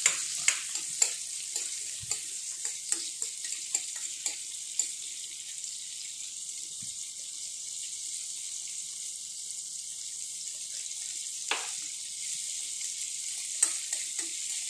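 Butter melting and sizzling in a non-stick kadai, a steady high hiss. A spoon taps and scrapes the pan as it stirs: a run of taps in the first few seconds and a few more near the end.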